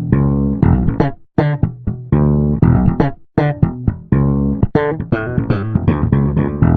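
Background music of plucked string notes played in short, rhythmic phrases with brief breaks between them.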